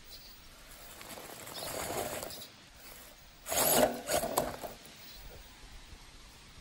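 Electric RC rock crawler on a Holmes Hobbies Sherpa chassis running up a rock in two short bursts of throttle, its motor and gears whirring. The first burst is softer, about two seconds in, and the second is louder, just past the middle.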